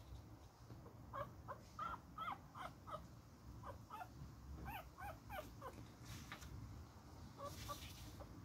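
Newborn beagle puppy whimpering: two runs of short, high squeaks, starting about a second in and again around four seconds in, with a couple of fainter ones near the end.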